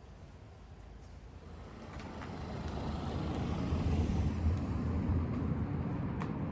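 A vehicle passing: a low rumble that swells to a peak about four seconds in, then fades.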